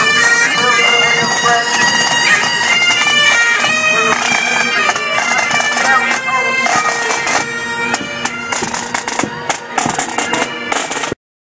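Pipe band playing: Highland bagpipes sounding a tune over their steady drones, with snare and bass drums beating along, the drum strokes more prominent in the second half. The sound cuts off abruptly shortly before the end.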